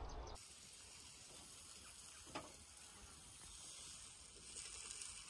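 Near silence: a faint steady hiss of background noise, with one brief faint blip about two and a half seconds in.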